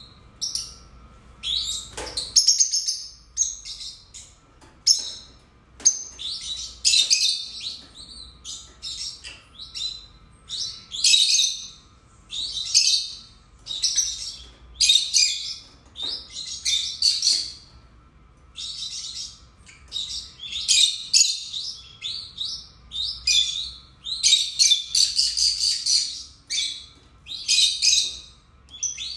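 Pair of lutino rosy-faced lovebirds chirping and screeching in rapid, high-pitched bursts, one call after another, with a sharp click about two seconds in.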